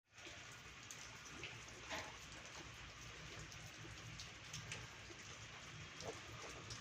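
Faint steady hiss with a few light clicks and knocks, the clearest about two seconds in and again near the six-second mark.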